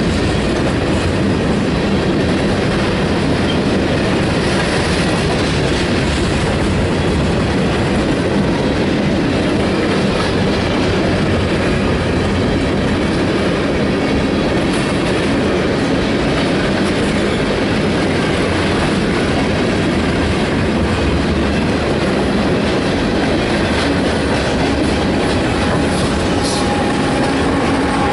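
Empty grain train's freight cars rolling steadily past, with a constant rumble and the clatter of wheels over the rail joints.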